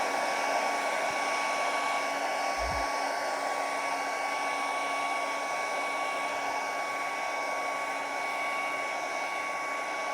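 Handheld hairdryer running steadily, a constant rush of air with a steady whine, blowing heat onto a glued PVC patch to make it grip.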